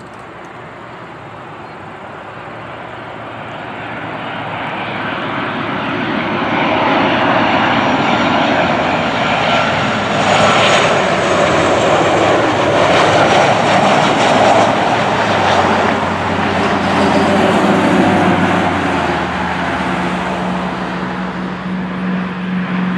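Boeing 737-900's CFM56-7B jet engines on final approach passing low and close: a rushing jet noise with a whine in it that builds over the first several seconds, is loudest in the middle, then slowly fades as the jet moves away.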